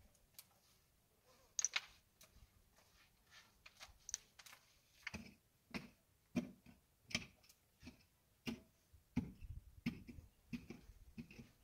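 Footsteps on loose gravel and stones, with scattered light clicks at first, then a steady walking pace of about one and a half steps a second from about five seconds in.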